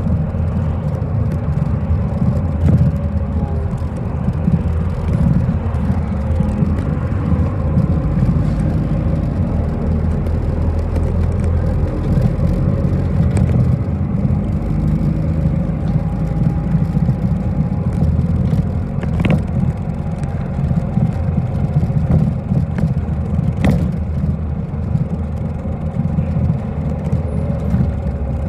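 Inside a moving city bus: a steady low rumble of engine and road noise, with two sharp clicks in the second half.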